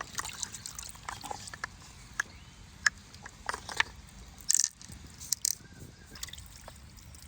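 Wet freshwater mussel shells being handled: scattered sharp clicks and short scrapes, with water dripping and trickling. The loudest is a brief scrape about four and a half seconds in.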